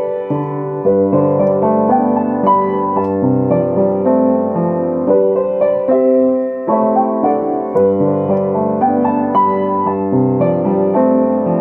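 Piano playing a flowing solo piece: quick, even runs of notes over lower held bass notes, without a break.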